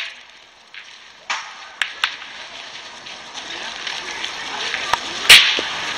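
Steel pétanque boules clicking: a few light clicks, then one loud, sharp metallic clack near the end.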